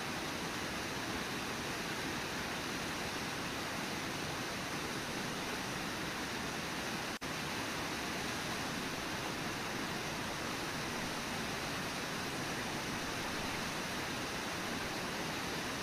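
Steady rushing of the water at Brooks Falls on the Brooks River, with the sound cutting out for an instant about seven seconds in.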